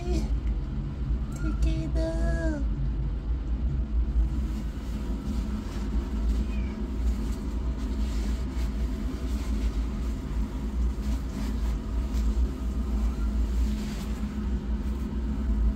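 A cat gives one drawn-out meow about a second and a half in, its pitch bending at the end, over a steady low rumble. A faint short high squeak follows a few seconds later.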